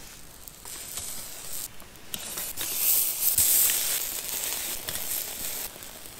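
Chicken wings sizzling as they are laid on a hot grate over a campfire: a hissing sizzle that swells about two seconds in, is loudest around three to four seconds in, then settles.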